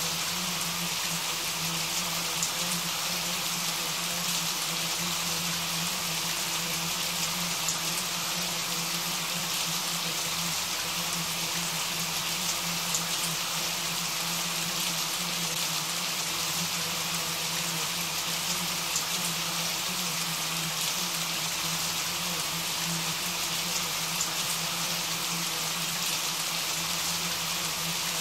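Steady rain falling: an even hiss of many drops that neither builds nor eases, with a steady low hum underneath.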